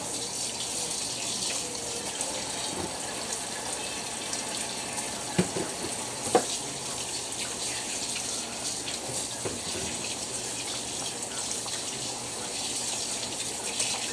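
Water running steadily from a kitchen faucet as hands are washed under it, with two brief knocks about five and six seconds in.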